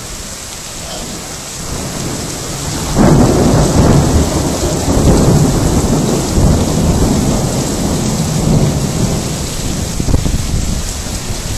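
Thunder breaking suddenly about three seconds in and rumbling on for several seconds before easing off, over steady rain.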